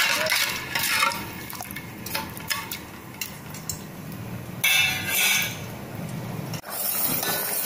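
Metal ladle stirring sugar and water in a steel pot, with scattered clinks and scrapes against the pot in the first few seconds. A short burst of hissing noise about five seconds in.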